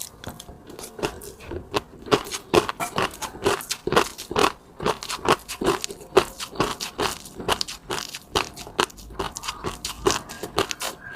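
Close-miked eating: a person chewing and biting food, a dense run of sharp, wet clicks and crackles, several a second.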